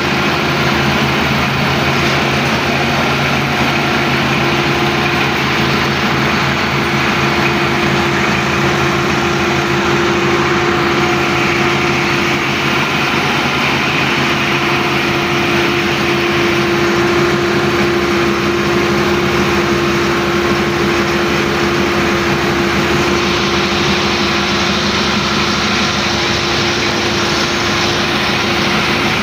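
Engine of a Bidwell concrete paving machine running steadily at a constant speed.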